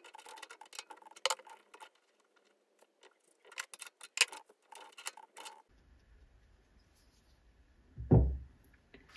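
Small metal clicks and taps of a hex key and steel tool holder being worked on a Multifix quick-change tool post, scattered over the first five seconds or so. A single dull thump follows about eight seconds in.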